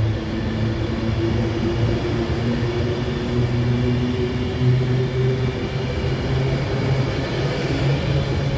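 Avanti West Coast Class 390 Pendolino electric train pulling out along the platform: a steady rumble with the electric motors' hum slowly rising in pitch as it gathers speed.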